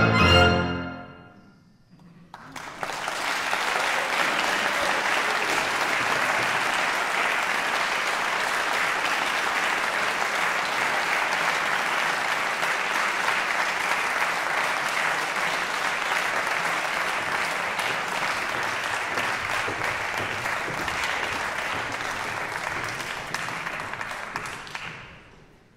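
The last chord of a violin, clarinet and piano trio dies away, then after a brief pause an audience applauds steadily for about twenty seconds before fading out near the end.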